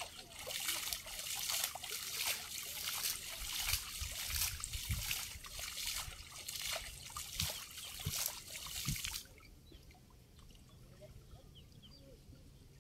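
Water trickling, sloshing and dripping as a wet cast net is hauled in by hand through shallow water, with many small splashes; it stops abruptly about nine seconds in.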